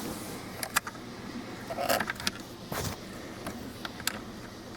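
Scattered sharp plastic clicks and light rattles, about half a dozen spread irregularly, as a wiring connector is worked back onto a new wiper switch on a car's steering column.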